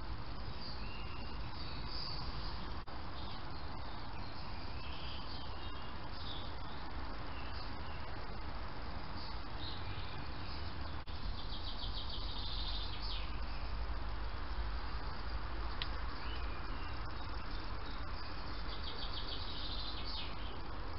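Small garden birds chirping and trilling: scattered short high chirps, with a fast rattling trill twice, about halfway through and again near the end, over a steady low background hum.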